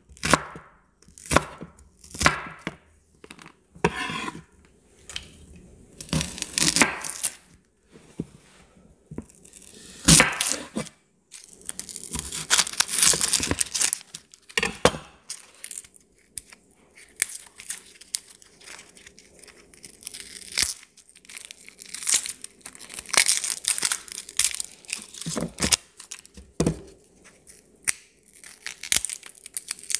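Kitchen knife cutting a red onion on a wooden chopping board in separate strokes, then the onion's dry papery skin being peeled off by hand with a crinkling, tearing rustle.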